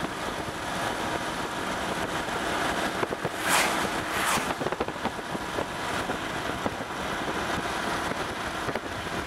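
Steady road and wind noise inside a car, with two brief loud hisses about three and a half and four and a half seconds in.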